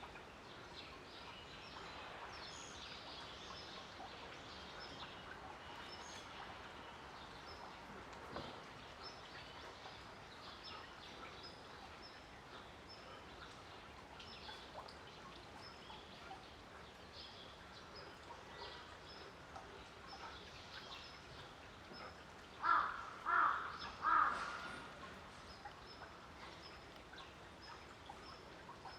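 Faint outdoor ambience with scattered short, high chirps, broken about three quarters of the way through by three loud calls in quick succession, each under half a second.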